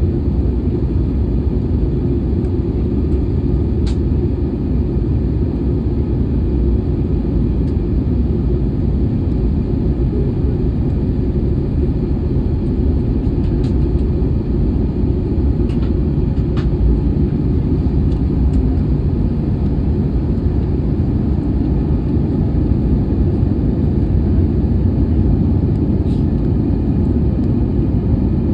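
Steady cabin noise inside an Airbus A320-214 in flight: a low rumble of airflow and its CFM56 engines, with a few faint clicks.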